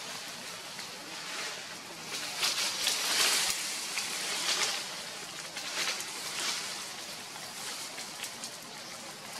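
Leaves and dry leaf litter rustling and crackling, with louder stretches of crackle about two to three and a half seconds in and again near four and a half and six seconds.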